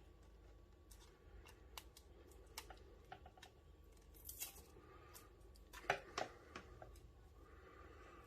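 Near silence with faint scattered clicks from handling things on a workbench, a brief soft hiss about four seconds in, and two slightly louder clicks about six seconds in.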